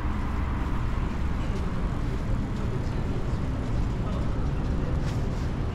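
Street ambience: a steady low rumble of road traffic with faint voices of passers-by and a few light clicks.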